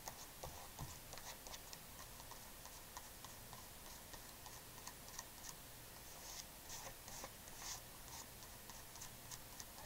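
Faint scratching and light ticking of fingers smearing acrylic paint over a sketchbook page, with a few louder rubs between about six and eight seconds in.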